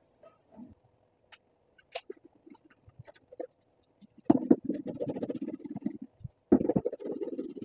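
A few light clicks, then two spells of scraping and rattling in the second half, each about a second and a half long: hand tools and fingers working the screws of a plastic wheel well liner loose.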